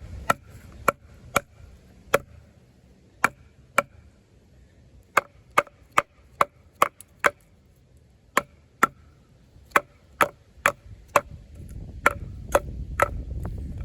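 Off-Grid Caiman XXL bowie knife with a D2 steel blade being struck into wood, about two dozen sharp knocks coming irregularly in short runs with brief pauses, each with a faint ring.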